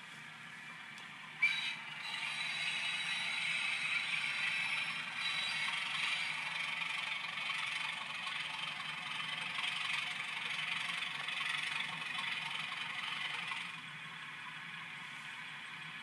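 Hornby class 31 model diesel locomotive with a DCC sound decoder running on the track, its onboard speaker giving a sustained diesel engine sound. The sound starts suddenly about a second and a half in and drops back a couple of seconds before the end.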